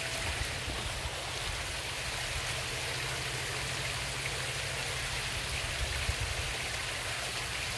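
Steady rush and patter of falling water at a koi pond, running evenly without a break.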